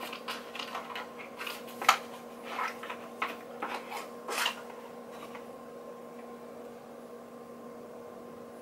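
Small handling noises as a cosmetics jar is lifted out of its cardboard box: light clicks, taps and rubbing for the first four and a half seconds, the loudest about two seconds in. After that only a steady faint hum remains.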